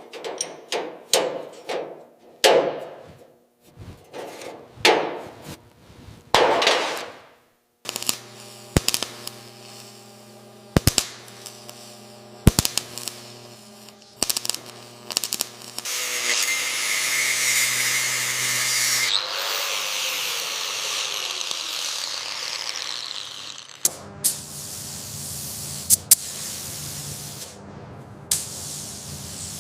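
Workshop power-tool sounds. A run of short noisy strokes gives way about eight seconds in to a motor humming steadily, broken by a few sharp metal knocks. Around sixteen seconds a loud hissing burst starts, and a tone falls as it dies away; the hum and knocks come back near the end.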